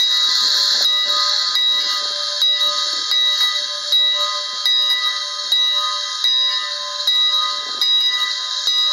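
Steam locomotive's bell ringing steadily, a strike about every 0.8 seconds, each stroke renewing a loud metallic ring.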